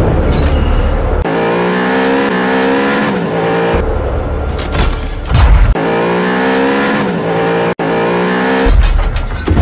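Sports car engine revving hard in two long rising sweeps, with heavy bass music in the gaps between them.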